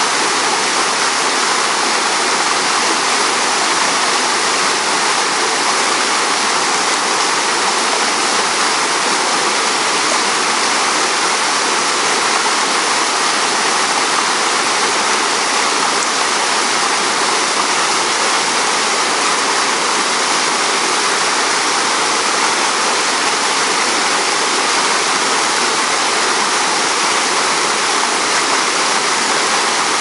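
Mountain stream cascading over boulders: a steady, even rush of water that does not change.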